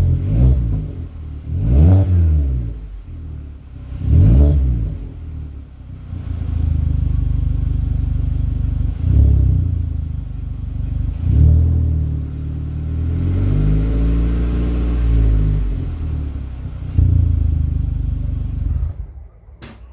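Volkswagen Polo Vivo's exhaust as the engine is revved in a series of quick throttle blips, each rising and falling back to idle, with one longer held rev in the second half. The engine sound drops away near the end, followed by a click.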